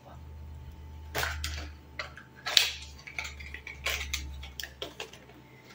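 Cosmetic products and their packaging being handled and rummaged from a cardboard box: a series of scattered rustles, knocks and light clinks over a low rumble.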